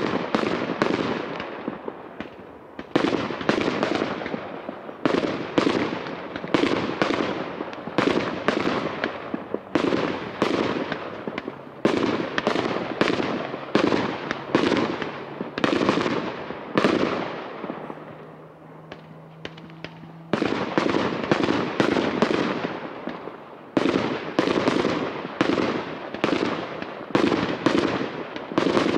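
Aerial fireworks going off in a rapid barrage, several bangs a second, each trailing off. The bangs ease off for a couple of seconds about two-thirds of the way through, then start again just as densely.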